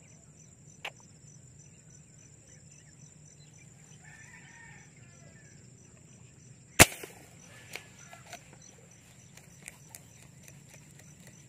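A single sharp air rifle shot about two-thirds of the way through, fired at a distant fish in the water, followed by a few lighter clicks.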